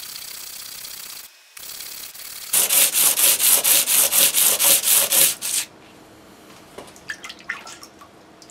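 A stone rubbed back and forth on 80-grit sandpaper to lap its face flat. It starts as a steady scraping, then after a brief break comes a fast run of loud strokes, about four or five a second for some three seconds, before it stops. A few light taps follow near the end.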